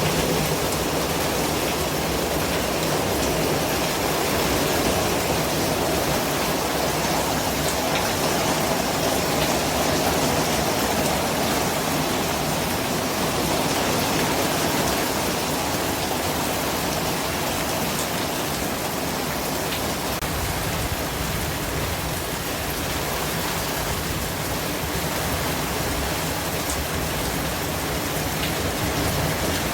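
A steady, even rushing noise across all pitches, like heavy rain, with a few faint ticks scattered through it.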